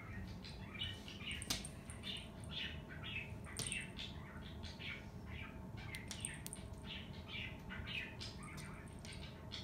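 Small birds chirping and squawking in short, irregular calls, a few a second, with a few sharp clicks, the loudest about one and a half seconds in.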